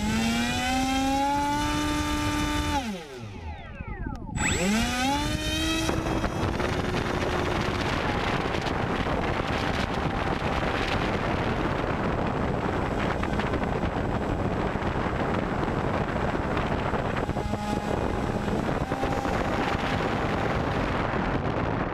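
Electric motor and propeller of an FMS Easy Trainer 1280 RC glider throttled up with a rising whine, cut about three seconds in, then throttled up again. From about six seconds in, wind rushing over the onboard camera's microphone in flight covers the motor, with faint steady motor tones now and then.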